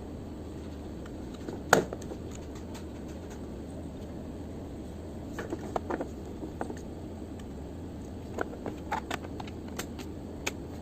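Scattered light clicks and taps of small objects being handled, one sharper click about two seconds in and irregular clusters later, over a steady low hum.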